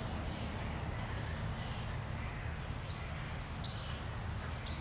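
Quiet outdoor ambience: a steady low hum with a few faint, short bird calls scattered through it.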